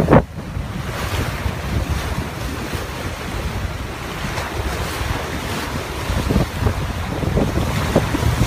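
Strong wind buffeting the microphone on a sailing yacht under way, over the rush of choppy waves against the hull. A loud gust hits right at the start, then the wind settles to a steady rumble.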